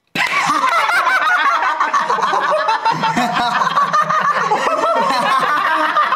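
A group of young men laughing together, several voices overlapping in one continuous burst of laughter that starts suddenly.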